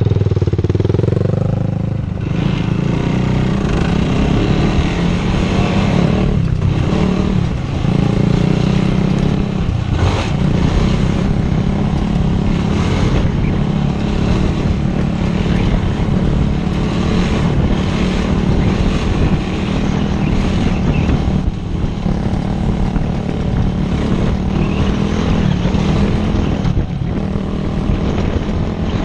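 2016 Yamaha YFZ450R's single-cylinder four-stroke engine running close-up while the quad is ridden. Its pitch rises and falls in the first couple of seconds, and it dips briefly several times as it goes.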